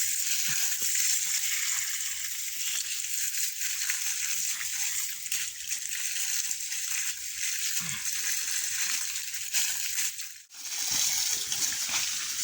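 Water spraying and splashing out of a broken irrigation pipe tee, a steady hiss that briefly cuts out about ten seconds in.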